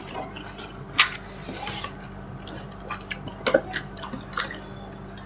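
Eating pani puri: a few scattered crunches and clinks against a plate, with small wet squishes, over a steady low hum.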